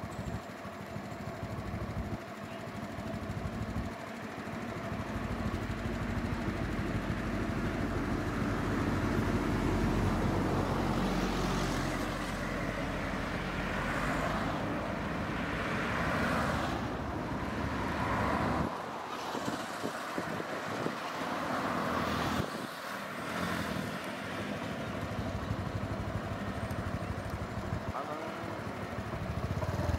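Highway traffic passing close: a lorry's engine and tyres build up and go by with a heavy low rumble, loudest in the middle stretch, and the noise drops off suddenly a little past halfway. Other cars and vehicles keep passing after it.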